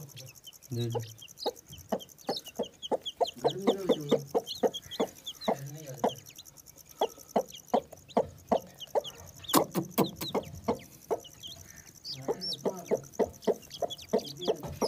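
Newly hatched chicken and partridge chicks peeping rapidly and over and over, with the broody hen giving low clucks now and then. A few sharp clicks come about ten seconds in.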